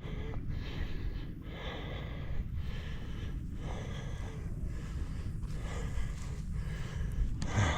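A person breathing hard while walking uphill, in a steady rhythm of about one breath a second.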